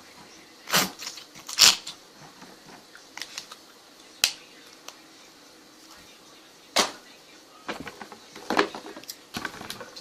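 Scattered sharp clicks and pops from slime and putty containers being handled. The two loudest come about a second in, single ones follow at about four and seven seconds, and a quicker run of them comes near the end.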